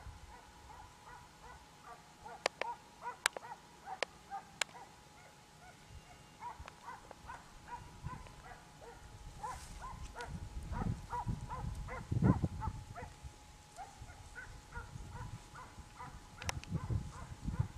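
Hounds baying in the distance in many short, quick calls, typical of a pack giving tongue while running a hare's trail. A few sharp clicks sound near the start and near the end, and wind rumbles on the microphone from about halfway through.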